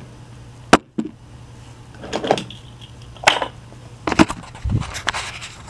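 Sharp switch clicks and irregular knocks and rustles of hands working radio and meter controls, over a steady low hum. One hard click comes about a second in, then a run of handling noises.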